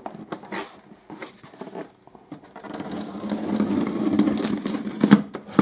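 Scissors cutting the packing tape on a cardboard box: scattered crackles and small taps at first, then a longer continuous scraping of the blade through the tape and cardboard from about three seconds in, and a couple of sharp clicks near the end.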